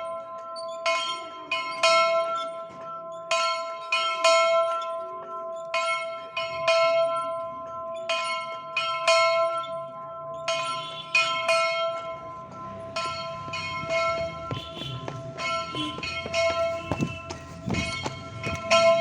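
A weeding-time bell being struck by hand, the signal for the weeding shift. The strikes come in quick clusters of several blows about every two and a half seconds, and the bell's ringing tones carry on between them. Near the end the strikes come closer together.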